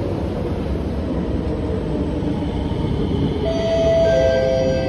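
Kawasaki-Sifang C151A metro train arriving at an underground station platform: a steady rumble of wheels on the rails, joined about three and a half seconds in by a steady whine of several pitches as it slows.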